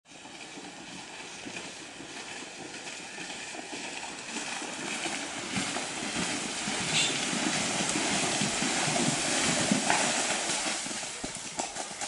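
Horse galloping through a shallow river, its hooves thudding and splashing through the water. The splashing grows louder until about ten seconds in.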